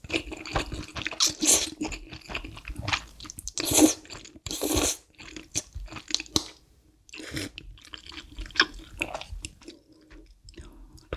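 Close-miked mouth sounds of a person eating spicy instant stir-fried noodles: wet slurping and chewing, with quick smacks and clicks throughout and two longer slurps around the middle.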